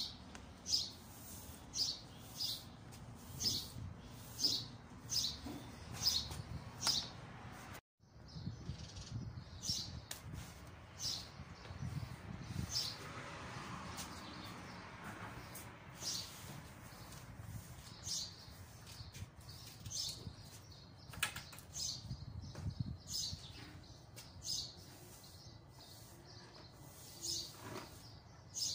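Broom sweeping fine storm sand across a tiled floor: quick swishes of the bristles, one or two a second, with a brief dropout about eight seconds in.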